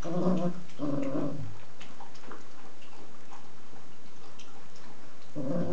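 Puppies making short pitched play vocalizations as they wrestle over toys: two brief calls in the first second and a half and another near the end, with faint scattered clicks and rustles in between.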